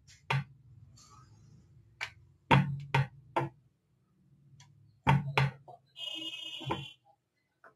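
Rolling pin knocking and clattering against a rolling board as dough is rolled out thin: a scatter of sharp knocks, with a short rasping stretch about six seconds in.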